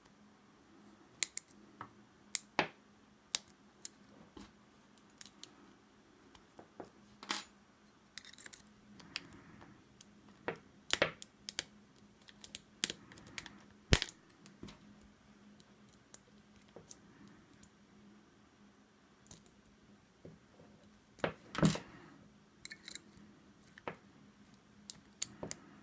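Metal lock picks and a tension tool clicking and scraping inside a double-sided wafer gun lock during single-pin picking. The clicks are irregular and sharp, with the loudest about halfway through and a dense cluster in the last quarter, over a faint steady hum.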